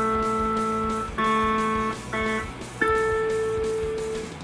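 Seven-string guitar's A string plucked open and left ringing, plucked twice more, then fretted at the 12th fret so it rings an octave higher: a harmonic-free check of the new Hipshot fixed bridge's intonation against a tuner.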